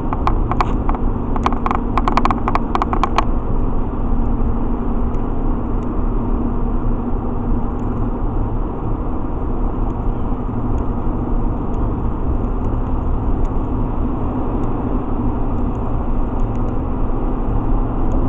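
Road and engine noise inside a vehicle at highway speed: a steady rumble with a faint steady hum. A run of light clicks comes in the first three seconds.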